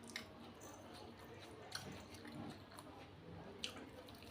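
A person chewing food quietly, with a few short sharp clicks spread through.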